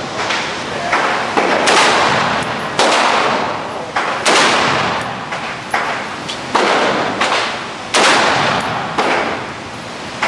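AR-15 rifle fired repeatedly in semi-automatic, a dozen or more shots at uneven intervals of about half a second to a second, each shot followed by a long echoing tail.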